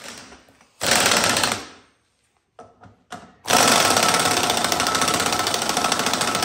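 Pneumatic impact wrench hammering steadily, starting about three and a half seconds in, as it drives the BeadBuster bead breaker's bolt to push an ATV tire's bead off the rim. A brief rush of noise about a second in and a few faint clicks come before it.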